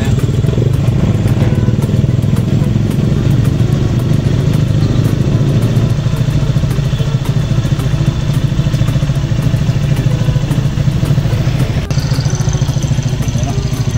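A small engine running steadily at an even speed, its low drone holding level without revving.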